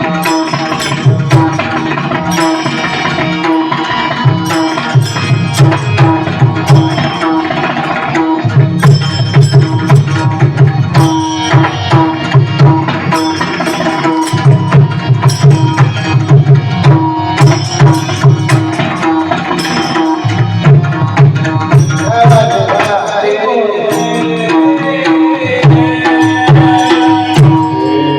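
Kirtan accompaniment: tabla playing a fast rhythm with brief breaks, small cymbals striking in time, and steady held notes beneath. A singing voice comes in near the end.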